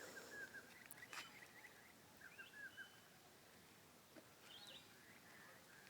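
Near silence outdoors, with faint bird chirps in a few short bursts and a faint click about a second in.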